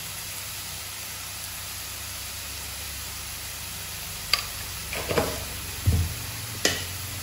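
Chopped vegetables sautéing in a little oil in a pan, with a steady sizzle. From about four seconds in come a few sharp clinks and a low knock against the pan.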